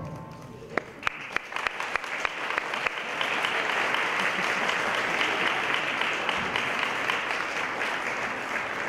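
Audience applauding: a few separate claps about a second in quickly build into steady, full applause that starts to thin near the end. At the very start the last of a digital piano chord is still dying away.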